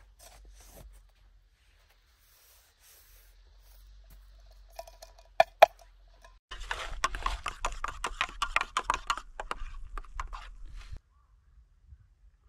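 Snow being scrubbed and swirled around inside a metal camping pot to clean it. Two sharp clinks come first, then a dense, rapid, gritty scraping for about four seconds that cuts off suddenly.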